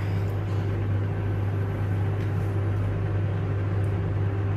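Steady low hum from a running motor or appliance, unchanging in pitch and level.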